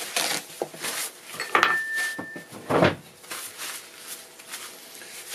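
Things being handled on a wooden workbench: light knocks and rustling, a short thin squeak about a second and a half in, and a dull thud near the three-second mark.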